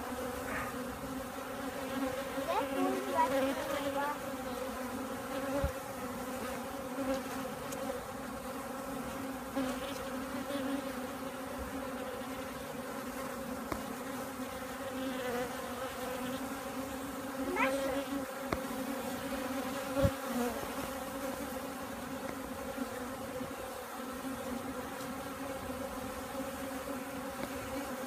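Honeybees buzzing close by, a steady even hum from the wingbeats of many bees, with a couple of brief soft taps.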